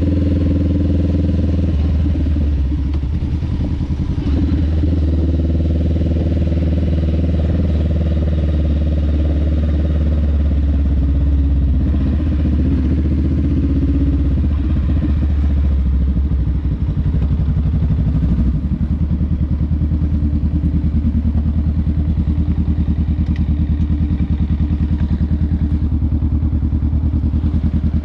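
Honda Rebel 500's parallel-twin engine running steadily with a low rumble through a Vance & Hines exhaust. Its level dips briefly past the middle, then settles into an even, rapid pulsing beat.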